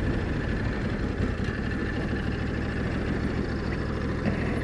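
Ducati motorcycle engine running steadily at low revs as the bike rolls slowly onto gravel.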